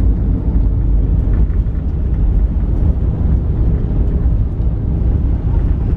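Cabin noise of an Airbus A320 airliner on its landing roll-out: a loud, steady low rumble of the engines and wheels on the runway, with the ground spoilers raised to slow the jet.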